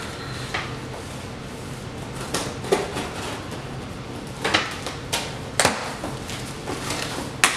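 Small cardboard box being handled and opened, with rustling and several sharp taps and knocks of cardboard, the loudest near the end.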